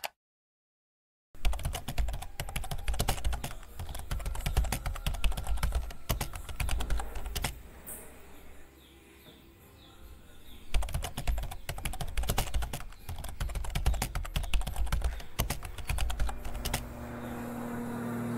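A single click, then a long run of fast, irregular clicks and taps, quieter for a moment midway. A low steady hum fades in near the end.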